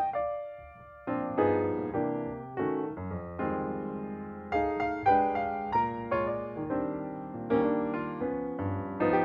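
Background piano music, soft chords and melody notes played at an unhurried pace.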